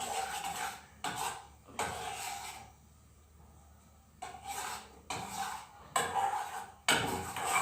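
A utensil scraping and knocking against a pan in irregular strokes, with a quieter pause of about a second and a half near the middle.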